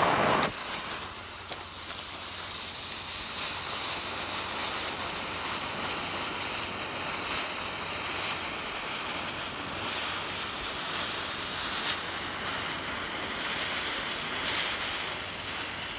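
A one-foot length of green Medium Cake cannon fuse burning with a steady hiss and a few faint crackles, after a brief louder flare as it catches at the start.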